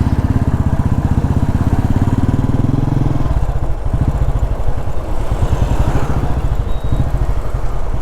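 Motorcycle engine running with steady, rapid firing pulses; its note changes about three seconds in.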